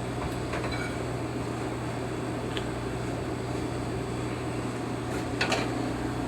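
Steady mechanical hum in a kitchen, like a fan running, with a few faint light clinks, the clearest near the end.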